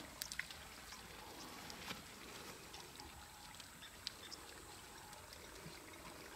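Faint wet squelching and small clicks of mud as an African elephant bull shifts in a mud wallow and works its trunk in the mud.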